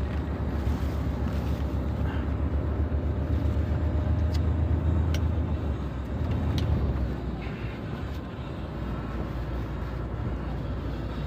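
Truck driving along the highway: a steady low engine and road rumble that eases slightly about two-thirds of the way through, with a few light clicks midway.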